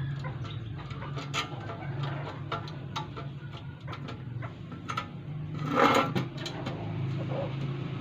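Small metallic clicks and taps from handling a Volkswagen door lock latch and its screws against a sheet-metal door panel. About six seconds in there is a louder, short clatter. A steady low hum runs underneath.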